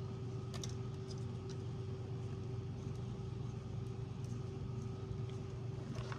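Steady low mechanical hum with a few steady higher tones, and a few faint light clicks about half a second to a second and a half in.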